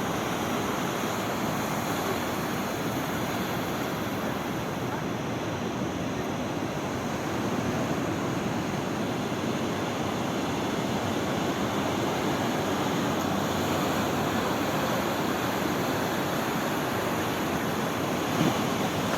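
Sea surf: a steady rushing wash of waves, with wind on the microphone.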